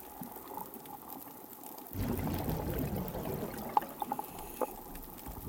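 Underwater reef sound picked up by a hydrophone: the steady fine crackle of snapping pistol shrimp, with a louder rush of water noise from about two seconds in and a few short pitched pips about four seconds in.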